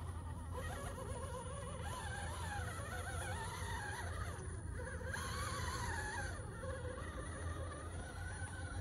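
Electric drive motor and gearbox of an Element Enduro Sendero RC crawler whining as it climbs a loose dirt slope. The pitch keeps rising and falling as the throttle is worked.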